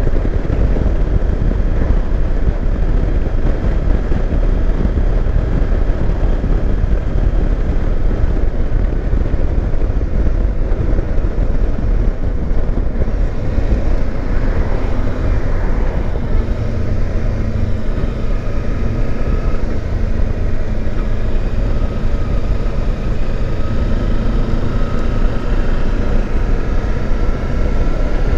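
Ride noise from a Kawasaki Versys X300 motorcycle on the move: steady wind rush over the helmet microphone with the parallel-twin engine running underneath, its hum coming through more plainly in the second half.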